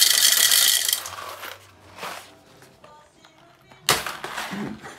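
Whole coffee beans poured from a paper bag into an espresso grinder's plastic hopper, a dense rattling pour that stops about a second in. Near the end a sharp knock as the bag is set down on the counter.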